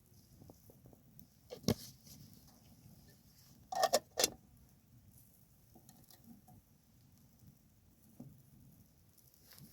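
A few short, sharp clicks and knocks: one about a second and a half in, then a quick cluster of three around four seconds in, over a faint low background.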